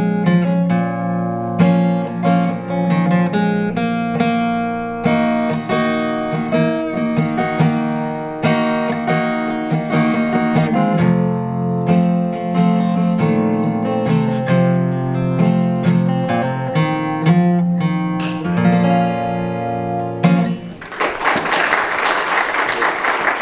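Solo acoustic guitar playing an instrumental passage of single notes and chords that ring on. It stops about 21 seconds in, and applause follows.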